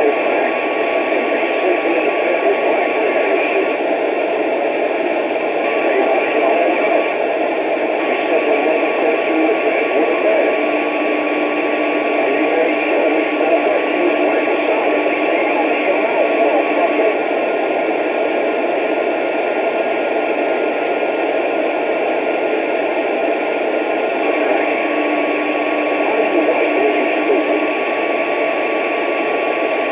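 Radio static: a steady, band-limited hiss from a receiver, with faint steady whistle tones coming and going on top of it.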